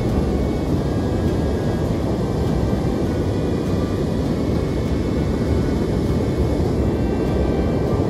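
Steady roar of heavy surf breaking on the shore, a continuous low rumble with no pauses.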